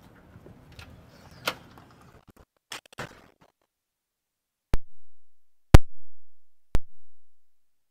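Faint room noise with a few small knocks, then dead silence broken by three sharp clicks exactly a second apart, the middle one the loudest.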